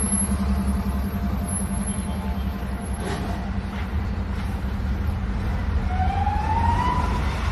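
Heavy diesel fire trucks in a convoy running with a steady low rumble. Near the end a siren starts and rises in pitch.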